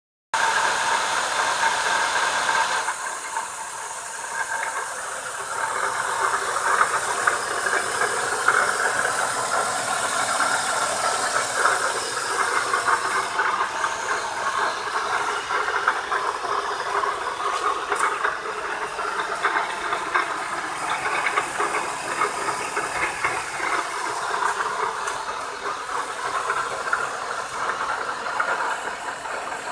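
BMW E36 engine running with a strange noise that the owner can't place.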